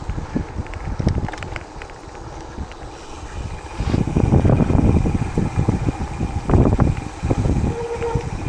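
Wind buffeting the microphone on a bike ride, with the gravel bike's tyres and frame rattling over a rough road. It eases off briefly, then grows louder and stays loud from about four seconds in.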